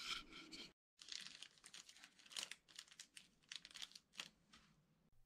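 Faint crinkling and rustling of something thin being handled, a string of short crackles after a brief silent gap about a second in.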